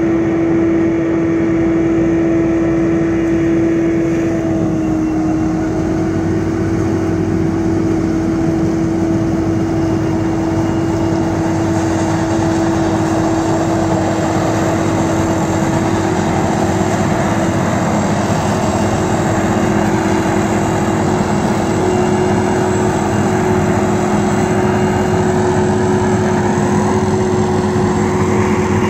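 Krone BiG X 1100 forage harvester, a large V12 diesel machine, running under load while chopping maize, with a Fendt tractor and silage wagon keeping pace beside it. A loud, steady machine drone with a constant humming tone, without letup.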